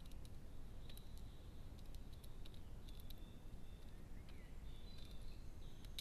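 Wood pigeon pecking mixed seed from a plastic feeder tray: scattered, irregular sharp clicks of its beak, faint over a steady low background noise. Distant birdsong sounds faintly now and then.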